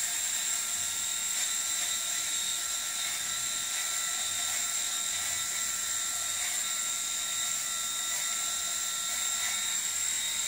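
Electric shaver running steadily against a man's face, a high, even motor whine as it cuts his beard stubble.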